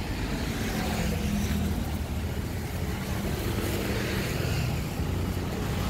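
Steady city road traffic: car engines running and tyres hissing on the wet road as vehicles pass.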